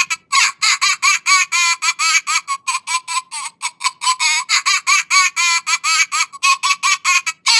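Rapid run of very high-pitched laughter, about six short squeaky pulses a second with wavering pitch, breaking off briefly near the end.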